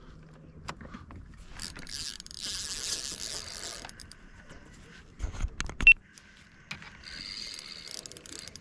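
Spinning reel being cranked to retrieve a lure, a whirring of its gears in two spells. Between them come a few sharp knocks, the loudest about six seconds in.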